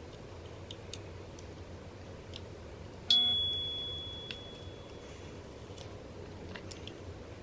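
Faint small clicks and scratches of a pointed tool prying at the plastic skates on the underside of a Glorious gaming mouse. About three seconds in, a single sharp high-pitched ding rings out and fades over about two seconds.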